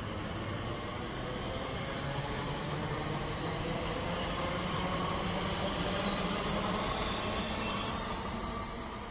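Class 345 electric train running along the platform and drawing away, with wheels and running gear rumbling over the rails and a low motor tone that climbs slightly as it gathers speed. The sound builds to its loudest about six to seven seconds in, then fades.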